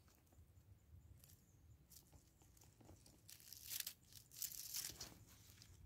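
A stick raking and poking through dry pine needles and dead leaves: faint rustling and crackling in several short bursts, the loudest just past the middle.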